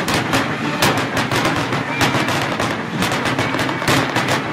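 Aerial firework shells bursting in the sky: a rapid series of sharp bangs and crackles, several a second.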